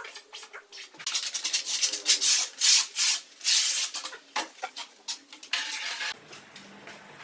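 Rapid, repeated scraping or rubbing strokes, hard and gritty, starting about a second in and stopping about a second before the end, followed by a quieter steady low hum.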